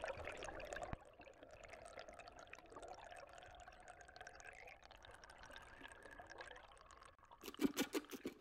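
River water sloshing and gurgling around a camera as it is dipped under the surface, loudest in the first second, then a muffled underwater gurgle. Plucked guitar music comes in near the end.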